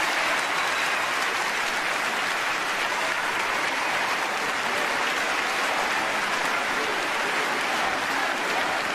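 A large audience applauding steadily: dense, even clapping that neither builds nor fades.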